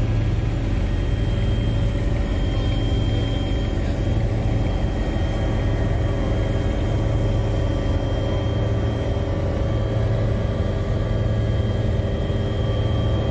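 Helicopter cabin noise in flight: the engine and rotor drone steadily and loudly, with a thin high whine over the top.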